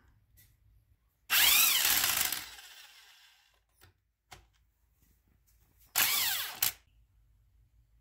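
Impact driver run twice on a strut's top shaft nut, each time with a whine that rises then falls: a longer run about a second in that winds down slowly, and a short one near six seconds that stops abruptly. The nut and strut shaft spin together instead of the nut breaking loose.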